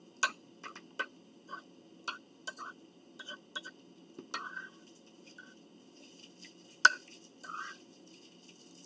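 Close-miked eating sounds: a fork clicking and tapping against a dish and food, with short wet chewing and mouth noises. The clicks come irregularly, about a dozen of them, the sharpest near seven seconds in.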